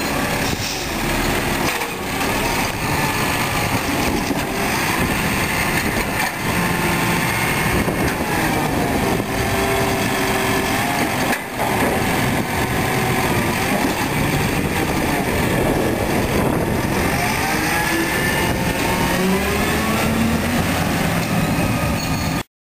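Peterbilt 320 garbage truck's diesel engine running and revving up and down as the Heil Formula 7000 automated arm hydraulically lifts, tips and lowers a trash cart, with a sharp knock about halfway through as the cart is dumped, then the truck pulling away.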